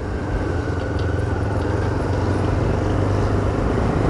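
Engine hum and road noise of the vehicle carrying the camera as it drives along a city street. It swells in the first second and then holds steady.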